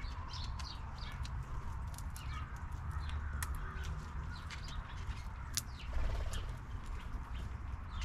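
Fox squirrel crunching seeds and nuts from a feeder bowl: many short, sharp cracking clicks. Small birds chirp in the background, over a low steady rumble.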